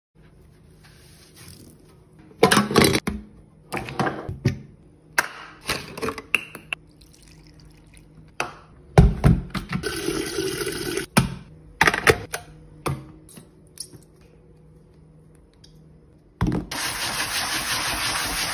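Kitchen sink cleaning at a stainless steel sink: a string of knocks and clatters as things are handled in the sink, and a tap running briefly into a glass kettle about ten seconds in. A loud steady rushing noise starts a couple of seconds before the end.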